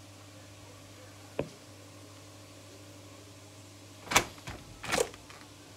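A faint steady hum with one light click, then a few sharp knocks and clatters about four and five seconds in.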